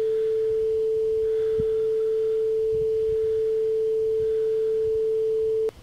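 A single steady electronic sine tone, pitched a little below 500 Hz and held unchanged for over five seconds, then cut off abruptly near the end. It is the quiz tone made by turning the wavelength of red light into a sound frequency.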